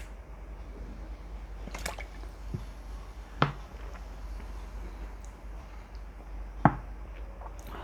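Four brief, sharp clicks at irregular spacing over a steady low hum.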